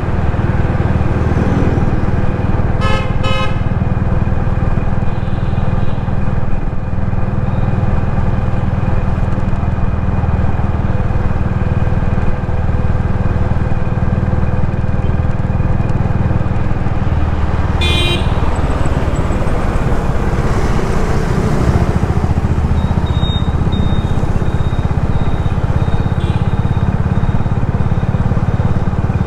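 Steady rumble of road traffic and a vehicle's engine and tyres while driving through city streets. Horns honk over it: a quick run of short toots about three seconds in, and another short honk near eighteen seconds.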